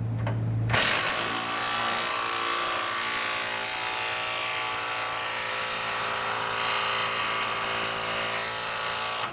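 Cordless impact driver hammering continuously as it runs a self-tapping bolt through the air-spring bracket into the truck frame. It starts just under a second in and runs for about eight seconds, stopping abruptly.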